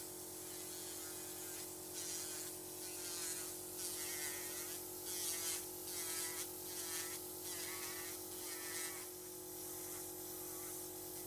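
Electric pedicure drill running at a steady whine, its pointed sanding cap grinding down callus over a corn on the sole of the foot. From about two seconds in until about nine seconds in there are repeated short scratchy passes, several each second, as the cap is worked against the hard skin.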